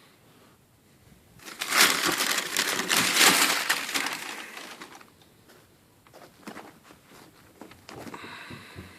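Shoebox packaging being crumpled and handled: a loud crinkling rustle lasting about three seconds, then quieter scattered rustles.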